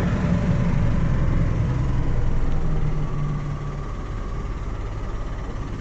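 Delivery truck's engine running at low speed, heard from inside the cab as it drives slowly; the engine note eases off and quietens a little about halfway through.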